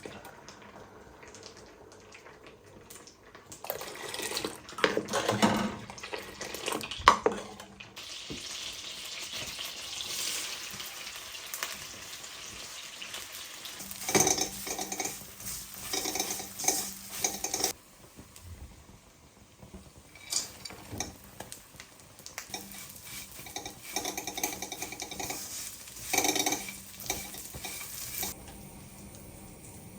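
Cooking in a metal pan: a metal spoon clinks and scrapes against the pan in spells, with a steady sizzle of frying food through the middle stretch.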